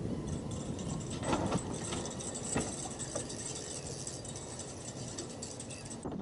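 Wind buffeting the microphone in a steady rumble, with a few light clicks and knocks from fishing tackle being handled, mostly in the first half.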